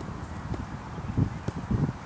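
Wind buffeting the microphone: a low rumble with several dull thumps in the second half.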